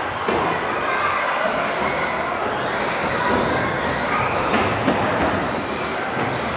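Electric RC off-road cars with modified-class motors racing on an indoor track: several high motor whines rise and fall as the cars accelerate and brake, with one steep rising whine near the middle.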